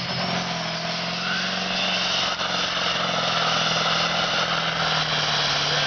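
Oliver 2255 pulling tractor's 636-cubic-inch Caterpillar 3208 V8 diesel wound up under full load while pulling the sled, a steady engine note with a high, jet-engine-like whine that builds about two seconds in.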